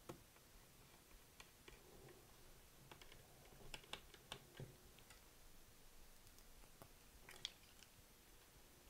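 Faint, irregular small clicks and taps of a screwdriver and fingers working on a cassette recorder's case while fitting its condenser microphone, with a cluster of clicks about four seconds in and another sharp tap near the end.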